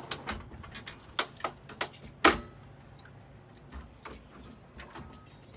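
A bunch of keys jangling, a quick run of light metallic clicks with one sharp knock about two seconds in, then a few quieter clicks.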